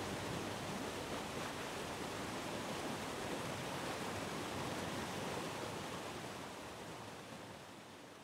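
A shallow river rushing steadily over a rocky, stony bed, a constant hiss of flowing water that fades out over the last two seconds.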